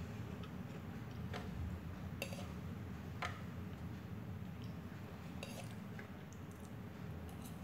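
A few light clicks and scrapes of a metal fork against a plate as noodles are twirled and lifted, over a steady low hum.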